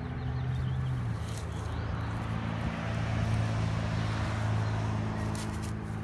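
An engine running steadily with a low hum that shifts a little in pitch, with a few scrapes of a hand trowel in dry soil near the end.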